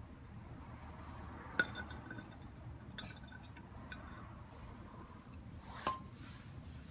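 A few sharp, light metal clinks of tools or parts being handled, each ringing briefly; the loudest comes about a second and a half in, another near the end.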